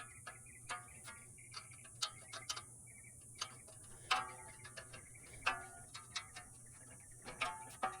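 Irregular metallic clicks and clinks, some in quick runs, from hand tools working on a condenser fan motor's shaft and fan-blade hub, over a faint steady hum.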